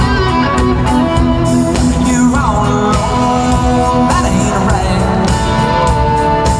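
Live country-rock band playing loudly, with a full band of guitars, bass and drums and a lead line that bends and slides in pitch a couple of times.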